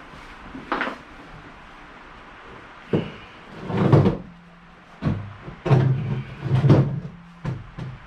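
A series of clunks and knocks, about eight of them, loudest in the middle and latter part, as a removed steel trunk lid is handled and set down.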